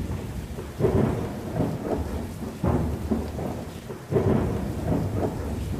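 Thunderstorm: three claps of thunder about two seconds apart, each rumbling away, over steady rain.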